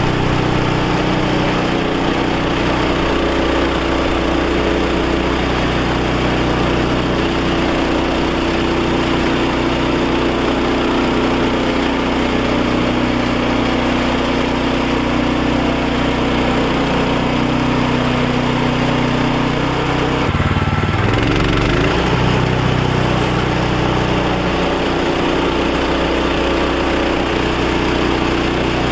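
Woodland Mills HM130 Max portable bandsaw mill running, its small gasoline engine held steady at speed. About two-thirds of the way through, the engine pitch dips briefly and then comes back up.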